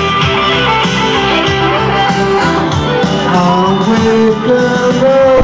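Pub singing into handheld microphones over loud amplified music with guitar, with a long held sung note near the end.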